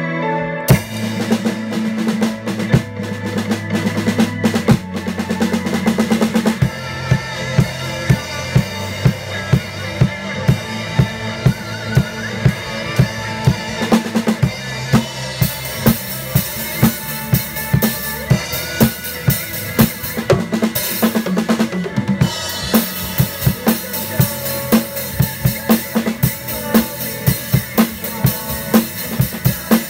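Drum kit played along to a backing song: a steady beat of bass drum and snare under the music. Zildjian cymbals wash in about halfway through and again for the last third.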